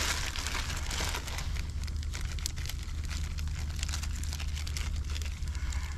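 Cooking fire crackling, with scattered small pops and clicks over a steady low rumble.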